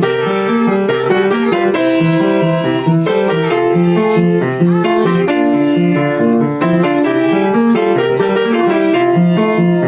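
Instrumental song accompaniment without vocals: keyboard-like chords and melody over a repeating, bouncing bass line in a regular rhythm.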